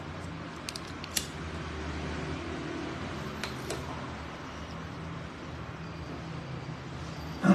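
Steady low background hum with a few faint clicks, then a louder knock near the end: handling noise close to the microphone.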